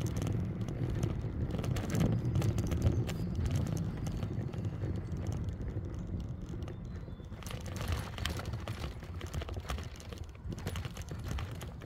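E-bike on the move: wind rumbling on the microphone, with frequent small clicks and rattles from the bike, busiest in the second half.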